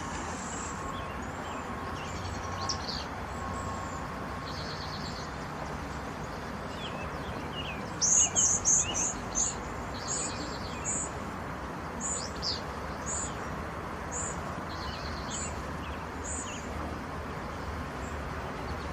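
Cedar waxwings calling in thin, very high, short notes, with a louder run of calls about eight seconds in, over a steady background hiss.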